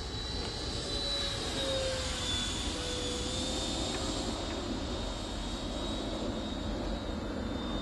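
The 64 mm electric ducted fan of a Banana Hobby F-16 model jet whining in flight: a high, steady fan tone that dips slightly in pitch about two seconds in, over a low rumble.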